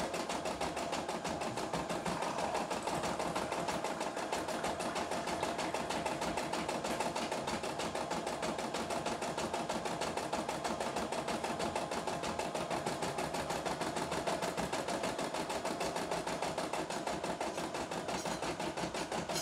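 CNY E960 computerized embroidery machine stitching a design: a steady, rapid run of needle strokes with the running clatter of the embroidery arm moving the hoop.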